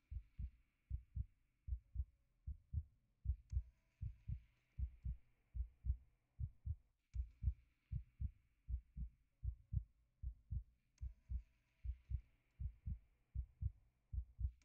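A heartbeat: steady, low double thumps repeating evenly, with a faint hiss behind.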